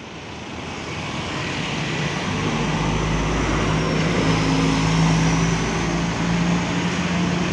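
Harapan Jaya intercity coach on a Mercedes-Benz chassis passing close by, its diesel engine giving a steady low hum. It grows louder over the first few seconds as the coach draws near, then holds at its loudest.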